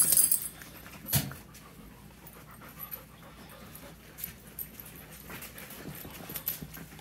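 Dogs playing on a fabric dog bed: rustling and scuffling, a sharp thump about a second in, and dog panting.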